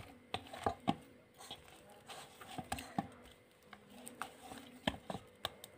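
Oiled spinach dough being kneaded and pressed by hand in a steel bowl: soft, irregular squishes and light taps against the metal, several a second.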